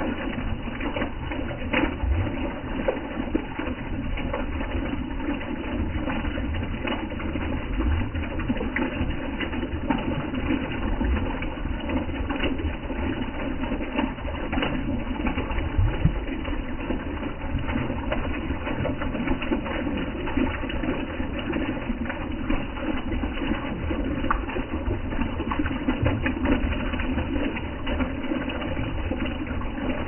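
Small stream of water running over a rock and splashing into a shallow pool: a steady trickling and splashing.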